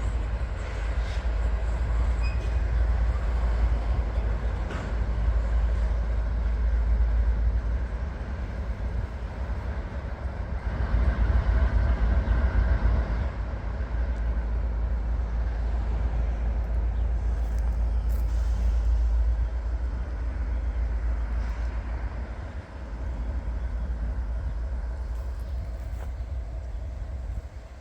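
Train on the Canadian National line making a steady rumble of locomotive and rolling railcars, loudest about halfway through.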